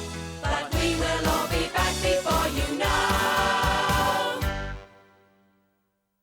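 Upbeat children's TV closing theme song with a steady beat and sung voices, ending on a held final chord a little under five seconds in.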